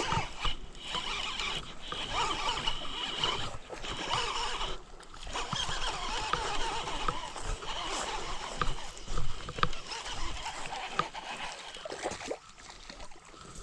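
A hooked largemouth-sized bass being fought and reeled in on a baitcasting rod and reel: the reel cranking among rustling handling noise and water splashing, growing quieter near the end.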